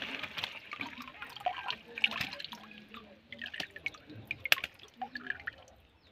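Water splashing and dripping from a fishing net full of fish hauled out of shallow water, with irregular wet slaps and clicks; one sharp click about four and a half seconds in.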